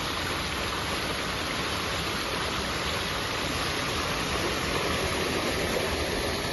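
Water rushing steadily through a narrow channel, an even splashing hiss.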